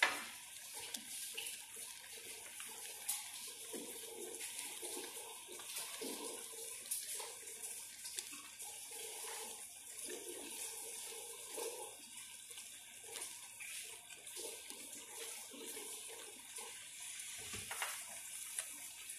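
Thick tomato-sauce stew simmering in a stainless steel pot, bubbling with small irregular pops over a steady hiss.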